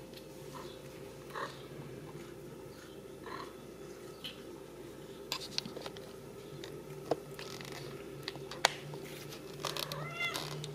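Ragdoll kittens playing on the floor: scattered faint taps, clicks and scuffles over a steady low hum, the taps coming more often in the second half.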